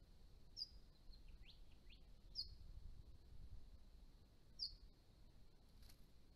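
Faint, short high bird chirps, three of them about two seconds apart, with a few fainter falling notes between, over a low steady rumble of background noise.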